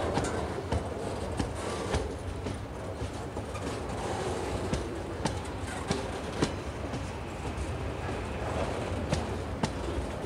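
Loaded container flat wagons of a freight train rolling past: a steady low rumble of wheels on rail, with sharp clicks and clacks at irregular intervals as the wheels pass over the track.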